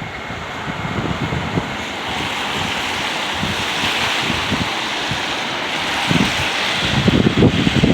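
Storm wind blowing steadily, with gusts buffeting the microphone in irregular low rumbles that grow stronger near the end.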